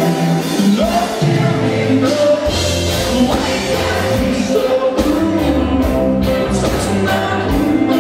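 Live indie rock band playing loudly: guitars, bass and drums with singing.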